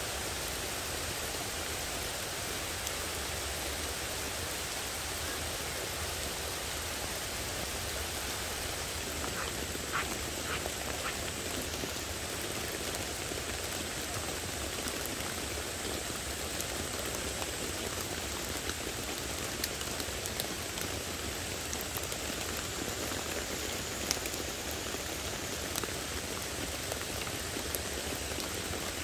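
Heavy rain falling steadily, an even hiss with a few sharper drip taps now and then.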